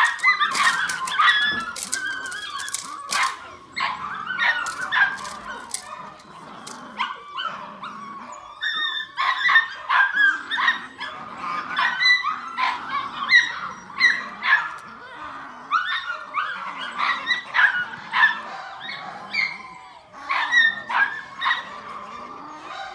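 Seven-week-old Malinois puppy yapping and barking in short, high-pitched calls, over and over, while it bites and tugs at a rag.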